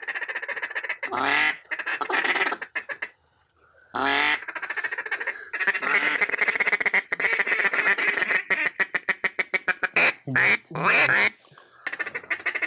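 Ducks calling: loud repeated quacks, with long runs of rapid chattering calls through the middle and a short lull about three seconds in.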